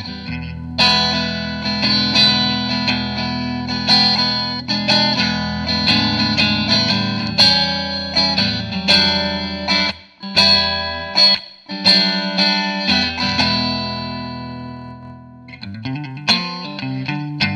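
Electric guitar played through a small practice amp, Marshall MG10CD, miked up close: strummed chords that ring out for a second or more each, with brief stops, then a quicker, choppier run of notes near the end.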